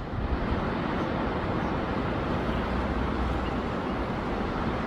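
Steady outdoor rushing noise with a low, unsteady rumble underneath, even in level throughout.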